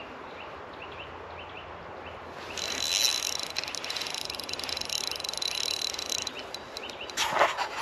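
Riverside outdoor ambience with a small animal's short high chirp repeating about twice a second. A steady high whirring with fine ticking comes in about two and a half seconds in and stops about two seconds before the end, followed by a couple of knocks.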